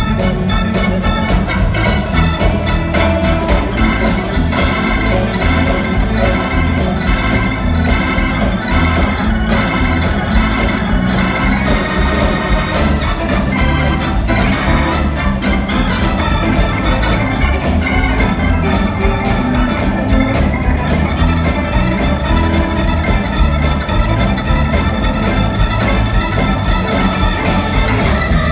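Live blues band playing, with a Hammond organ prominent over drums and electric guitars.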